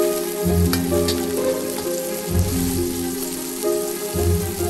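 Sauce bubbling and sizzling in a hot wok, a steady hiss, with a couple of light clicks of a metal ladle against the wok about two-thirds of a second in. Background music with a regular bass line plays over it.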